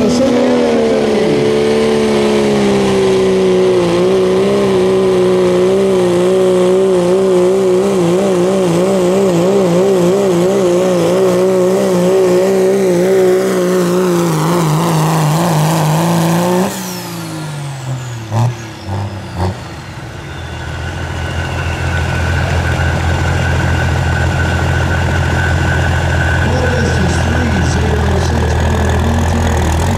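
Ford Super Duty pickup's diesel engine at full throttle pulling the weighted sled, its revs wobbling quickly and slowly sinking under the load. About halfway through the throttle is released at the end of the pull: the revs fall away with a falling high whine, and the engine settles to a steady lower running.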